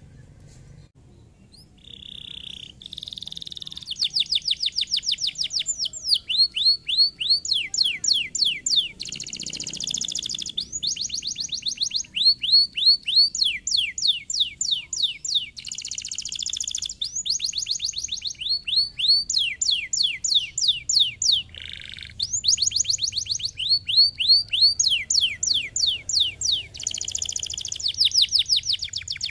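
Domestic canary singing. Long runs of fast trills made of quickly repeated high notes alternate with short buzzy rolls, starting about two seconds in.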